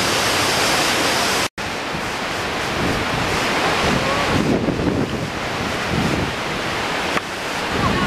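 Steady rushing roar of a large waterfall, cutting out for an instant a little after a second in and then resuming.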